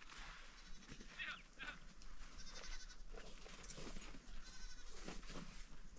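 Goats bleating faintly, with a couple of calls about a second in.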